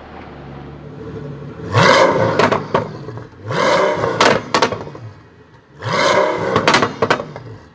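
Pagani Huayra's 6.0-litre twin-turbo M158 V12 revved three times from idle while the car stands still; each rev rises sharply and falls away, with a few sharp cracks as it drops.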